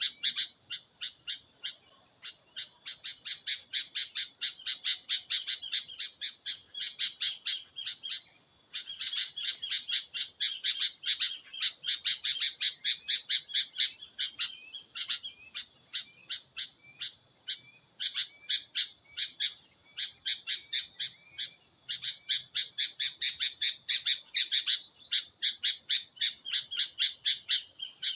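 Birds chirping in a rapid, regular series of short high chirps, about three a second with a few brief pauses, over a steady high ringing tone.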